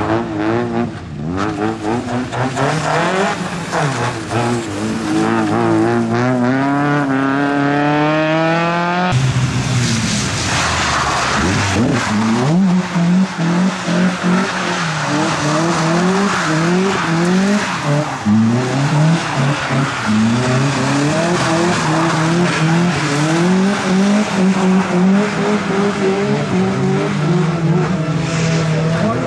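Competition car engine at full throttle, its pitch climbing steadily for several seconds, then after an abrupt cut revving up and lifting off again and again in short rises and falls, as a car is thrown through a slalom course.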